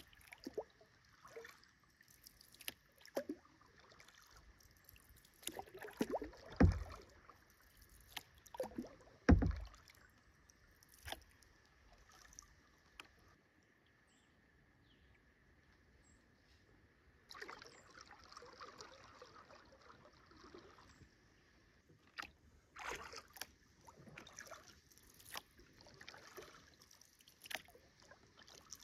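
Kayak paddling: paddle blades splashing and dripping water in irregular strokes, with two louder low thumps about three seconds apart and a quieter lull midway.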